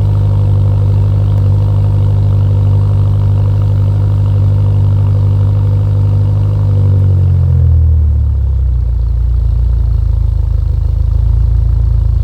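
BMW M car's engine running steadily at raised revs. About seven seconds in, the revs fall away over a second or so, and it settles to a lower, steady running speed.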